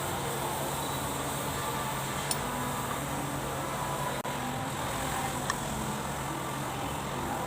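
Kubota V1501 four-cylinder diesel engine running steadily, with a brief dropout about four seconds in.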